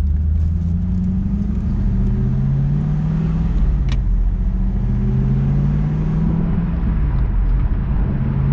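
2002 Pontiac Trans Am WS6's LS1 V8 pulling away under acceleration: the engine note climbs, drops at a gear change about four seconds in with a sharp click, climbs again, and drops once more near the end before rising again.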